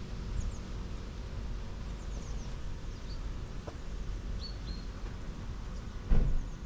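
Outdoor ambience: a steady low rumble with scattered short, high, falling bird chirps. A single dull thump near the end is the loudest sound.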